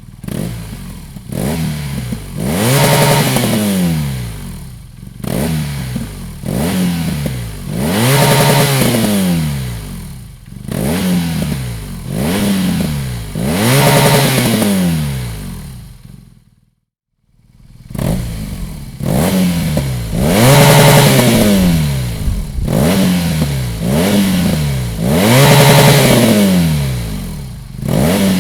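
BMW R 1200 GS (2011) air/oil-cooled boxer twin running through a Dominator aftermarket exhaust muffler, revved over and over, each rev rising in pitch and falling back, with a brief silent break about two-thirds of the way through.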